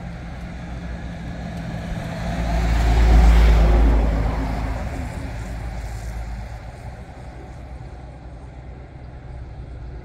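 A road vehicle passing close by: a low rumble that swells to its loudest about three seconds in, then fades away.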